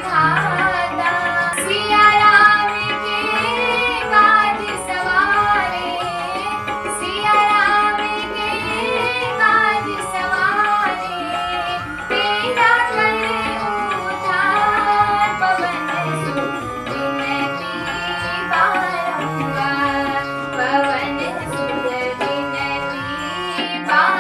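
Instrumental interlude of a Hindi devotional bhajan: a melodic lead line with gliding ornaments over a steady tabla rhythm.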